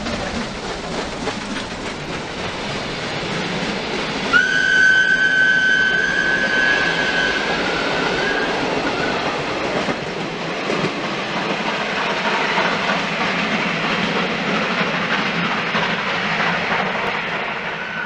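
Steam locomotive and its train of coaches passing close by, with steady wheel and train noise. About four seconds in the locomotive sounds its whistle: one long blast of about three seconds that dips in pitch as it ends.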